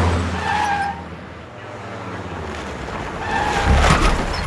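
A small pickup truck's engine revving hard as it speeds by, with tires squealing. It fades after a loud pass at the start, then surges again with more squealing near the end.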